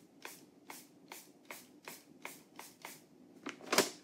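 Pump-spray bottle of makeup sealer spritzed over and over: short hisses, two or three a second, with one louder rush of air near the end.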